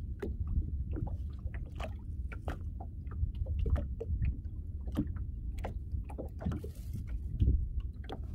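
Aboard a small fishing boat at sea: irregular light knocks and clicks over a steady low rumble.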